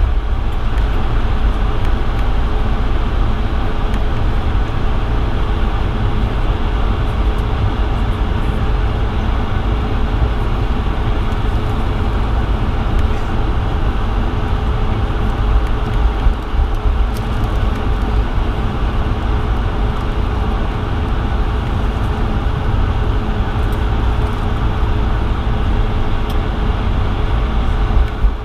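Cabin noise of a Bombardier CS100 (Airbus A220-100) on the ground before takeoff: a steady low rumble with the hum of its Pratt & Whitney PW1500G geared turbofans at idle.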